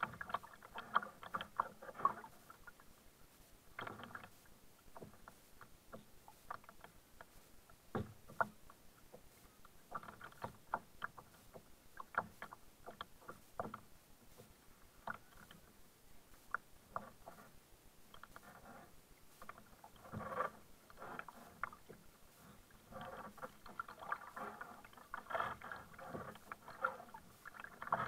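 Kayak paddling: the double-bladed paddle dipping and pulling through calm water, giving irregular splashes, drips and small clicks, in clusters that come and go with the strokes. Heard close up from the kayak's bow.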